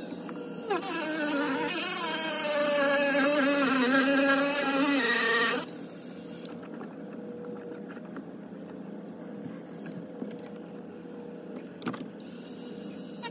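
Handheld rotary tool running for about five seconds, its whine wavering in pitch as it trims the dash's radio-opening bar, then cutting off suddenly. After it stops, only a faint steady hum and a few light clicks remain.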